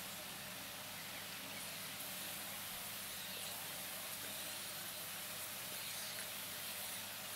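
Water spray hissing steadily.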